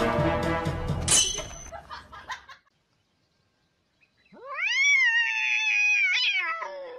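Music fades out in the first two seconds. After a short silence, a cat gives one long yowl that rises steeply in pitch, holds for about two seconds, then falls away near the end.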